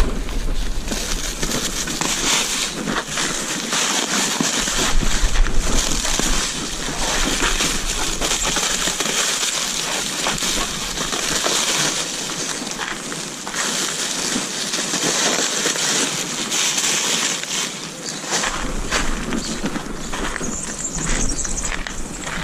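Black plastic bin-bag and stretch-film wrapping being cut and torn off a pallet load, crinkling and rustling continuously with many short crackles.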